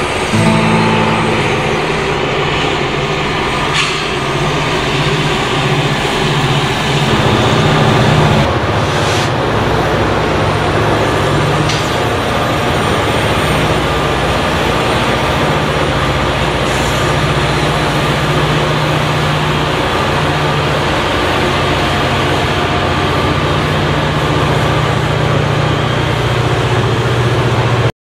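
Norfolk Southern diesel freight locomotives passing under load, a steady deep engine drone over the rumble of the train.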